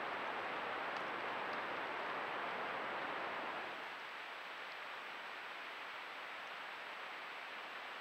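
Steady rushing noise of a creek flowing, picked up by a trail camera's microphone; it drops in level a little under four seconds in. A faint steady high tone runs through it.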